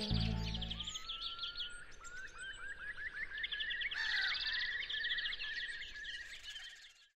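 Several songbirds singing over each other, with fast high trills and runs of short chirps. The tail of a soft music track fades out in the first second, and the sound cuts off just before the end.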